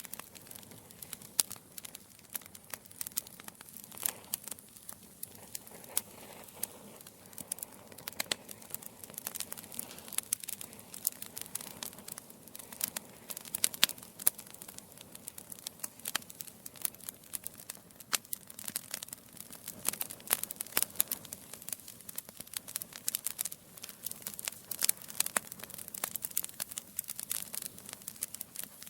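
Wood fire in a fireplace, burning logs crackling and popping with many irregular sharp snaps over a soft steady hiss of flame.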